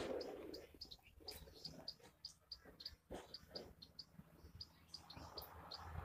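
Faint high chirps from sparrows in the treetops, repeating about three times a second, over light rustling.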